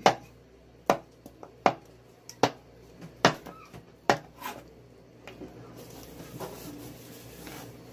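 Kitchen knife chopping a bar of Kojie San kojic-acid soap into small cubes, the blade knocking sharply on the cutting board about every 0.8 seconds. There are six strong strokes, then lighter taps over the last few seconds.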